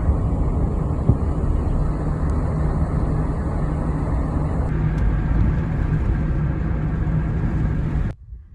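Steady, rough low rumble of wind buffeting the microphone. It cuts off suddenly near the end.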